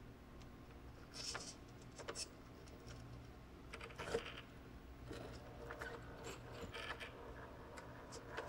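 Radio-controlled Redcat Ascent rock crawler picking its way over rocks: scattered light clicks and knocks as its tyres, wheels and chassis bump and scrape the rock, over a faint steady low hum.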